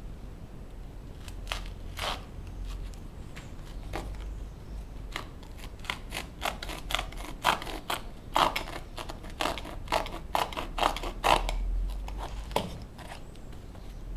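A knife slicing through the upper of a Vans sneaker: a run of irregular short cutting and scraping strokes, sparse at first and coming thick and fast in the middle stretch before tailing off.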